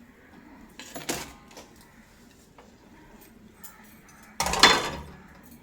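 Two brief clattering handling noises, the second, a little over four seconds in, the louder.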